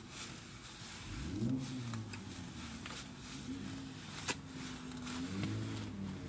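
Car engine running, its pitch rising about a second in, holding steady, then shifting again near the end, with a sharp click about four seconds in.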